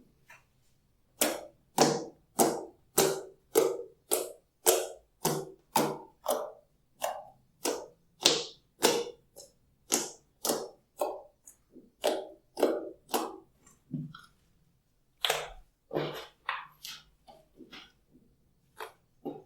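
Glossy slime being pressed and squished by hand, each press a sharp sticky click that fades quickly, about two a second in a steady rhythm. It breaks off for a moment about two-thirds of the way through, then carries on less evenly.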